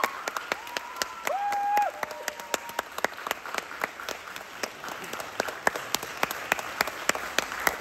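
Audience applauding, with the individual hand claps distinct. A short voice call sounds about a second and a half in.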